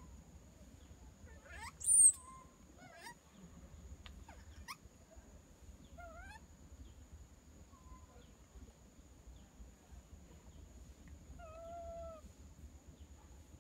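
Scattered short, high-pitched animal calls: quick rising squeaks and chirps, the loudest about two seconds in, and one longer held call near the end, over a steady high whine.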